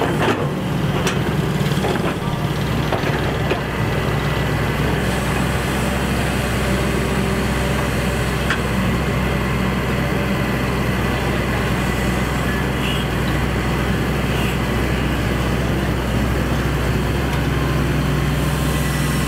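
Heavy excavator diesel engine running steadily with a deep, even hum, with a few sharp knocks in the first two seconds.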